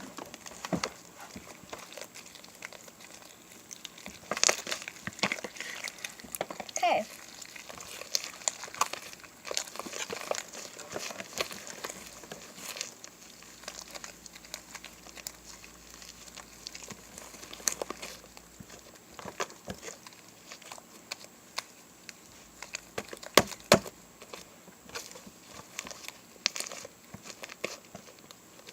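Homemade glue slime worked and squeezed by hand, making irregular clicky crackling pops, with two sharper pops about two-thirds of the way through.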